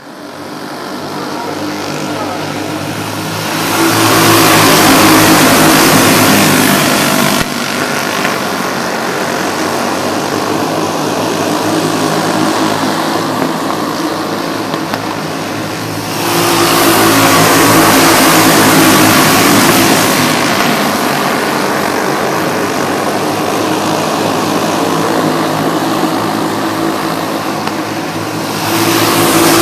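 A pack of dirt-track racing karts running laps, their small engines at high revs. The sound swells loud as the pack passes close about four seconds in and again about sixteen seconds in, drops back as they run the far side of the oval, and rises once more near the end.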